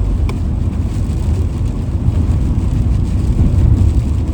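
Van driving along the road: a steady low rumble of engine and road noise.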